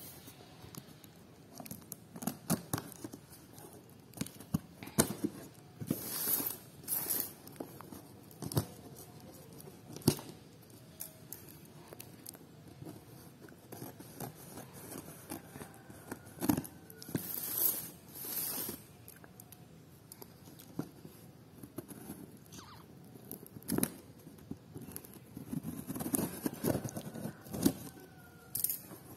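Scissors cutting and sliding along plastic packing tape on a cardboard box, with rasping tape tears, cardboard scraping and scattered taps and knocks as the box is handled. Near the end the cardboard flaps are pulled open.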